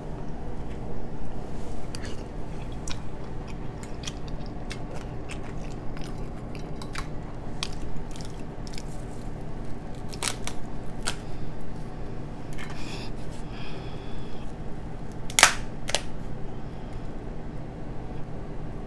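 Close-miked eating of king crab legs: chewing, with scattered sharp clicks and cracks as the crab leg shells are snapped open by hand, the loudest crack about fifteen seconds in. A steady low hum runs underneath.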